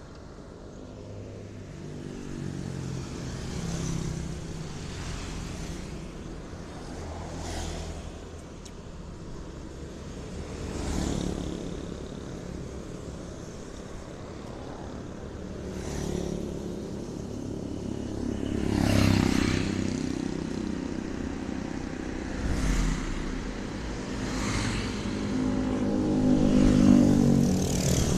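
Road traffic: motor vehicles passing one after another, each engine swelling and fading, with the loudest passes near the middle and near the end.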